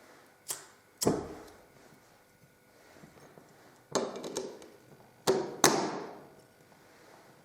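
A handful of sharp knocks and clatters of hard objects being handled or set down on a hard surface, each ringing briefly: one at about a second in, a cluster of clicks around four seconds, and two close knocks near the middle of the second half, the last the loudest.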